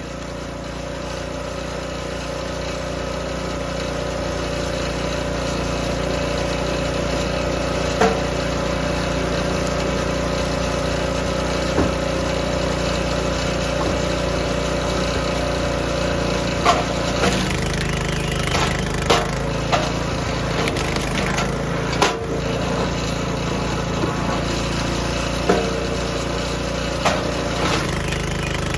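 Small gas engine of a DR K28 Pro log splitter running steadily, swelling over the first few seconds. Sharp cracks and knocks come as hardwood rounds are split and handled on the splitter, a few early on and many in the second half.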